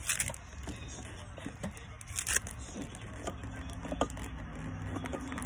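Scattered soft clicks and scrapes of hands handling and adjusting a plastic gimbal LED downlight trim set in a vinyl soffit, over a steady low hum.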